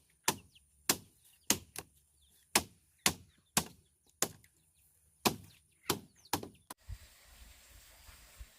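Bamboo being chopped with a blade: a steady run of sharp strikes, about two a second, that stops abruptly near the end, leaving faint outdoor hiss.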